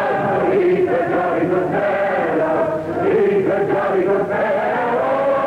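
A crowd of men and women singing together, many voices on one wavering tune, on an old newsreel soundtrack with the top end cut off.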